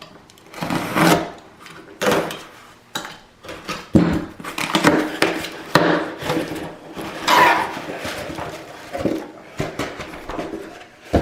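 Small door-knob retail box being handled and turned over: irregular rustling, scraping and light knocks, with a sharp knock near the end.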